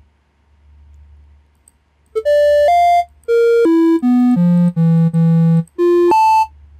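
Synthesized beep notes from the micro:bit MakeCode editor's piano-key note picker, each clicked key previewing its tone. A quick run of short notes at jumping pitches begins about two seconds in and stops just before the end.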